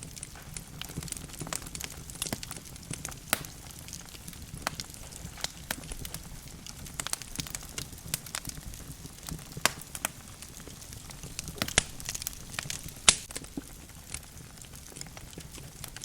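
Logs burning in a fireplace, crackling with irregular sharp pops and snaps over a low, steady rumble of flame; one pop stands out as the loudest, about three seconds before the end.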